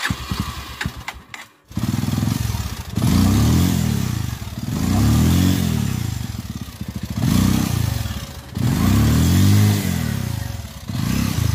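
Bajaj Pulsar 220F's single-cylinder four-stroke engine catching after a short clatter about two seconds in, then revved hard again and again, its pitch rising and falling every two seconds or so. The motorcycle is bogged in deep mud and is being throttled to drive it out.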